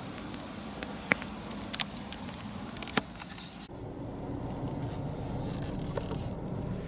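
Wood campfire crackling, with a scatter of sharp pops from the burning logs. About three and a half seconds in, the crackle gives way abruptly to a steady low hum.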